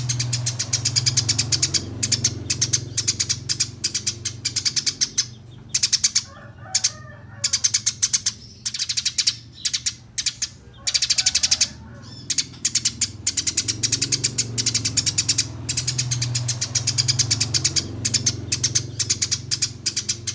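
Eurasian tree sparrow (burung gereja) in 'tarung' song: fast, tightly packed runs of sharp, high chirps rolling on almost without break, with two short pauses holding softer, lower notes. A steady low hum sits beneath.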